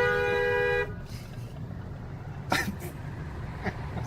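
Small truck's two-note horn sounding steadily and cutting off sharply about a second in. The horn is miswired into the brake-light circuit, so it sounds whenever the brake pedal is pressed. A short knock follows a couple of seconds later.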